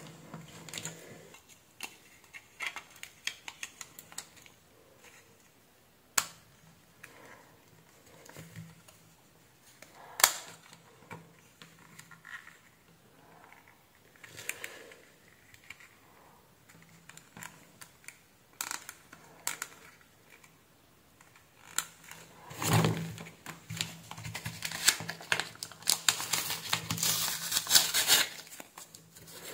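Hands handling an optical computer mouse: scattered small plastic clicks and taps, with two sharp snaps about six and ten seconds in as the shell is pressed together. For the last several seconds, a louder crackling rustle of masking tape being peeled off paper.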